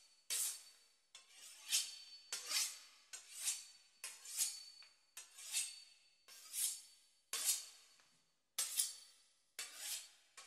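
A knife sawing through the crisp pastry crust of a beef Wellington, with about one rasping stroke a second.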